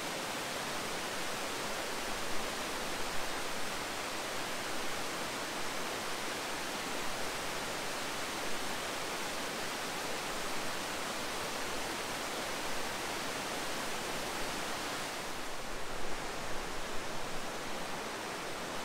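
Waterfall and whitewater rapids pouring over granite rock, a steady, even rush of water.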